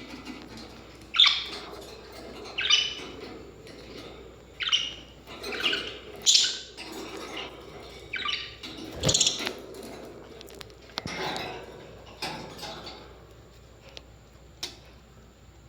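Birds calling in short, harsh chirps, a burst about every second or so, growing sparse near the end with only a few faint ticks.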